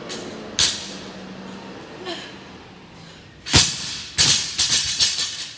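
Loaded barbell with rubber bumper plates during clean and jerks: a sharp knock under a second in, then a heavy thud a little past halfway and a quick run of thuds and rattles as the bar comes down and lands on the floor.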